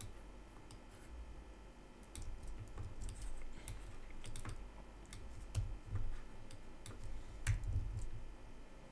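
Typing on a computer keyboard: irregular bursts of keystrokes, the loudest one about seven and a half seconds in.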